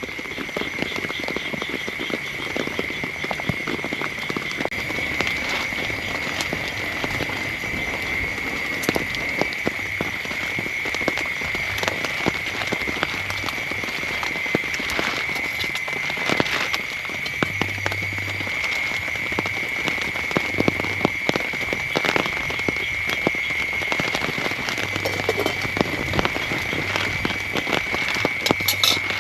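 Heavy rain pattering in many fine drops, over a constant high-pitched trill from a night chorus. Low pulsing notes come in near the middle and again toward the end.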